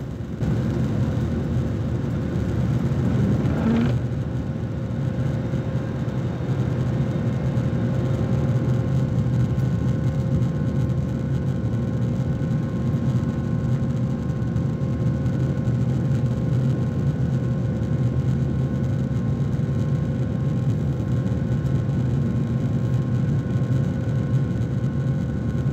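Cabin noise of a Boeing 737-800 airliner in flight: the steady rumble of its CFM56 jet engines and airflow, with a faint steady whine on top. The sound shifts about four seconds in, then holds steady.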